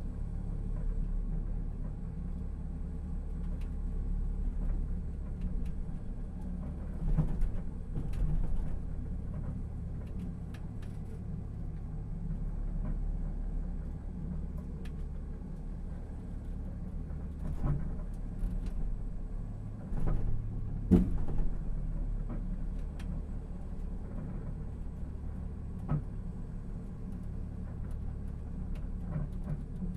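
Steady low rumble and vibration of a Busan Blue Line Park Sky Capsule rail pod running along its elevated track, heard from inside the cabin. A few knocks and jolts break through, the sharpest about two-thirds of the way in.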